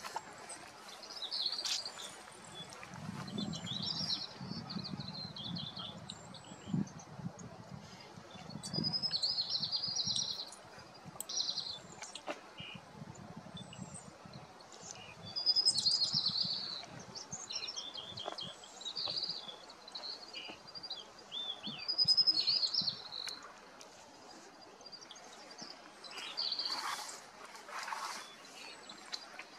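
Small birds chirping and twittering in quick, short high phrases, scattered through a quiet forest background, with two louder, harsher calls near the end.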